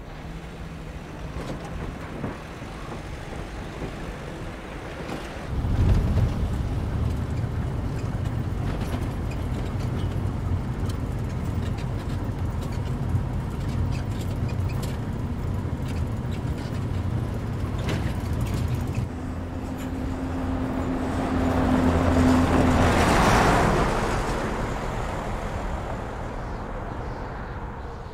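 Vehicle engine and road noise droning steadily from inside a van's cab, starting about five seconds in. Later a louder rush of road noise swells and dies away.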